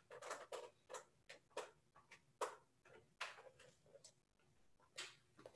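Near silence, broken by faint, irregular small clicks and ticks, roughly one or two a second.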